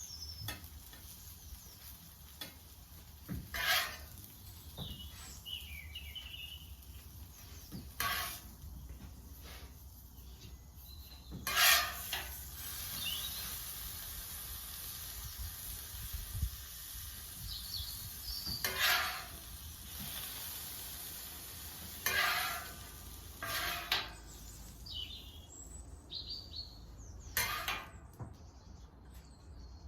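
Food sizzling on a Blackstone flat-top griddle, with about seven short, sharp sounds of a metal utensil on the steel, the loudest about twelve seconds in. Birds chirp faintly now and then.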